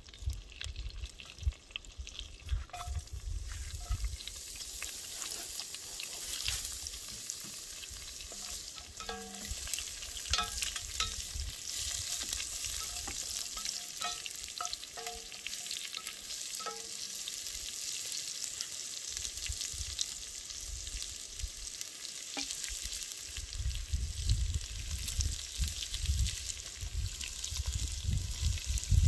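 Food sizzling and crackling in a black camp pot over a campfire as it is stirred with a wooden stick. A low rumble sits under it at the start and again in the last few seconds, where it is loudest.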